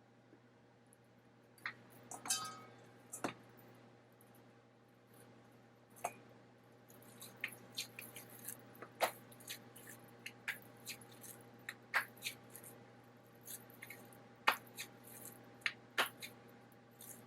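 Faint kitchen handling noises: scattered light clicks and taps, with a brief ringing clatter about two seconds in, over a low steady hum.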